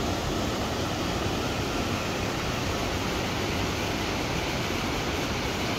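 Whitewater of a small mountain creek rushing over rocks, a steady loud rush of water.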